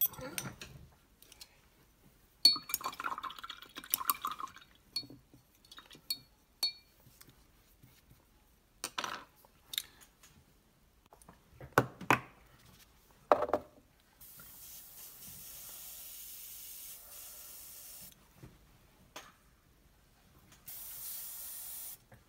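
Small clinks and taps of metal and glass as paint is added to an airbrush's cup, then the airbrush spraying: a steady hiss for about four seconds, and a shorter burst of hiss near the end.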